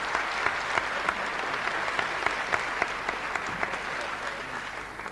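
Audience applauding, an even patter of clapping that eases off near the end, from an old archival ceremony recording.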